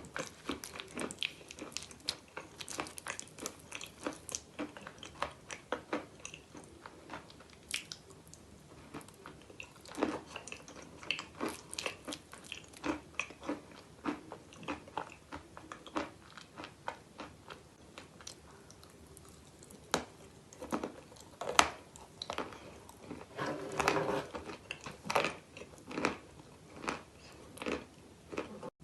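Close-up chewing of crunchy chalk: the teeth bite and grind pieces of a chalk bowl with clay paste, in many irregular sharp crunches, some louder bites standing out.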